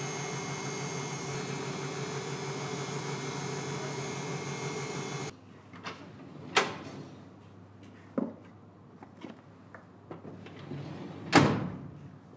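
A steady electric motor hum with several whining tones stops abruptly about five seconds in. It is followed by a few sharp knocks and small clicks, the loudest knock near the end.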